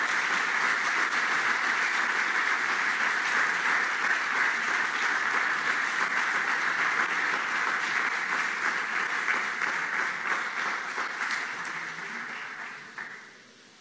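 Audience applauding steadily, many hands clapping together. The clapping fades over the last couple of seconds and stops shortly before the end.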